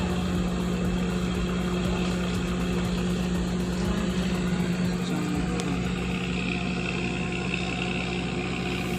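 An engine running steadily at an even pitch, idling without revving.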